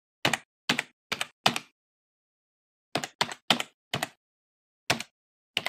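Computer keyboard typing: about a dozen sharp keystrokes in uneven groups, four in the first second and a half, four more around the middle, then one and a quick run near the end. The typing sound effect accompanies text being typed out at a prompt.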